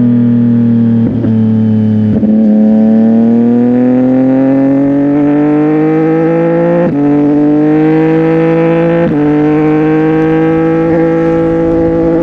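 CFMOTO 675NK's three-cylinder engine through a titanium full-system exhaust while riding. The note drops through two quick gear changes in the first couple of seconds, then climbs steadily, with upshifts about seven and nine seconds in.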